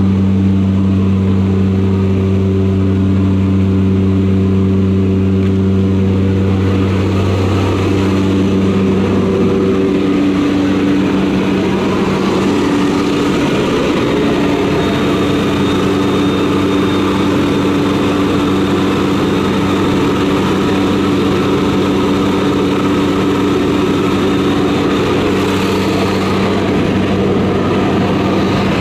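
Steady drone of a jump plane's propeller engines heard inside the cabin. From about eight to twelve seconds in, the pitch of the hum shifts a little and a rush of air grows louder and stays.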